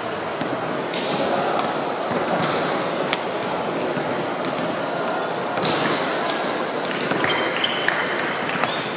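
Badminton rackets striking the shuttlecock, sharp cracks at uneven spacing from a rally, over the steady chatter of a crowded sports hall. Short high shoe squeaks on the court floor come in near the end.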